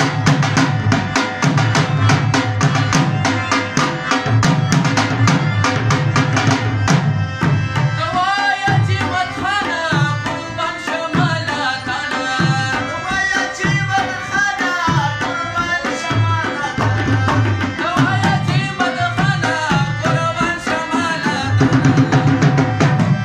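Pashto song played live on tabla, dhol and harmonium, with fast drumming over a steady harmonium tone for the first several seconds. About eight seconds in, a male singer comes in and sings over the tabla and harmonium to the end.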